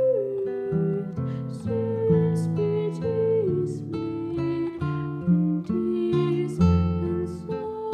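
A girl singing a slow melody with long held notes and gentle slides between them, over an acoustic guitar accompaniment.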